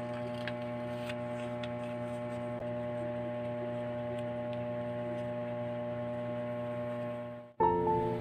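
Background music holding a steady chord of sustained tones, with a few faint light taps from a paper card handled on a desk. About seven and a half seconds in, the chord cuts off abruptly and soft melodic background music begins.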